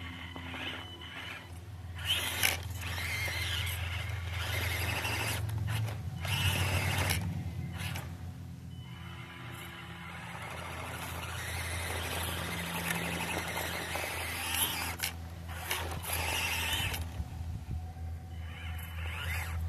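SCX24 Jeep Wrangler micro RC crawler's small electric motor and gears whining in stop-start bursts as it crawls up a dirt slope, with its tyres scraping over loose dirt and rock.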